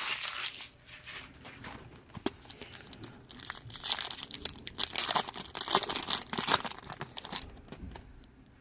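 Baseball card pack wrappers crinkling and crackling as they are handled and pushed aside, with a pack being torn open, in irregular rustling spurts that are busiest in the middle.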